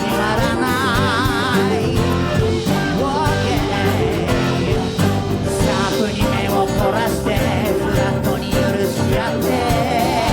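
Live band playing an instrumental passage with drums, bass, guitar and piano, a wavering melody line carried on top.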